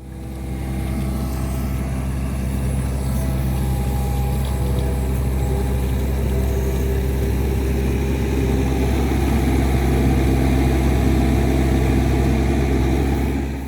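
Mini excavator's diesel engine running steadily as it digs, the hum getting a little louder in the second half.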